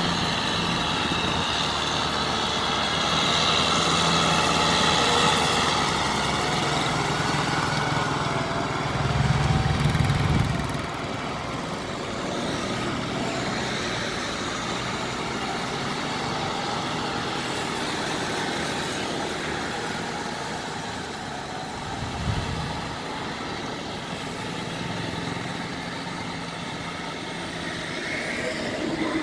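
Kubota tractor's diesel engine running steadily as it works through wet paddy mud, growing louder for a second or so about nine seconds in.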